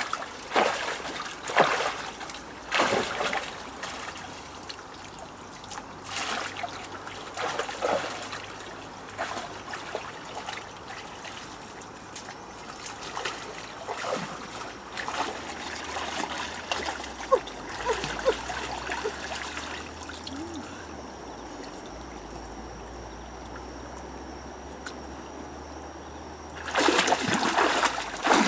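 Water splashing and trickling in irregular bursts, quieter in the middle, with a louder spell of splashing near the end.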